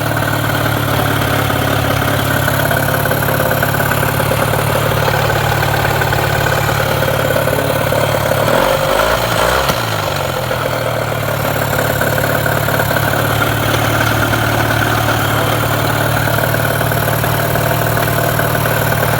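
1996 Mercury 15 hp two-stroke outboard motor running steadily, its carburetor freshly gone through. About nine seconds in, its pitch briefly wavers down and back up for about a second.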